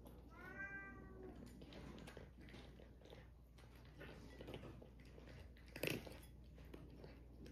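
A cat meows once, briefly, near the start; then a cat crunches dry kibble from a bowl with scattered small clicks, and one louder click about six seconds in.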